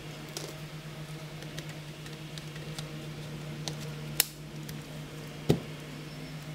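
Plastic case of a Toshiba NB200-series netbook clicking and tapping as it is handled and turned over, with two sharper knocks about four and five and a half seconds in, the second the loudest. A steady low hum runs underneath.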